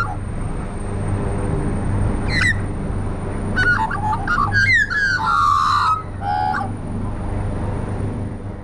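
Australian magpies calling close by: a short call about two seconds in, then a run of warbling, gliding calls from about three and a half to nearly seven seconds. A steady low hum runs underneath, and the sound fades out at the end.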